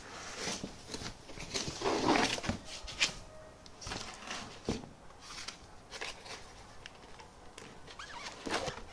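Foam packing sheets scraping and rubbing against a cardboard box as they are lifted out, with scattered rustles and light knocks; the loudest scrape comes about two seconds in, followed by a sharp click.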